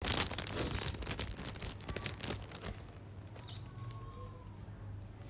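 Rustling and clicking of a phone being handled close to its microphone, densest in the first two or three seconds. After that, quiet room tone with a steady low hum and a couple of faint short chirps.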